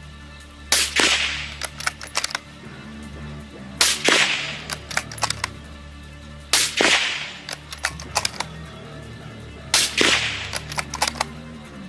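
Four suppressed shots from a .308 bolt-action rifle, about three seconds apart, fired through a titanium .30 calibre suppressor. Each shot has a short fading tail and is followed by a quick run of sharp metallic clicks as the bolt is cycled.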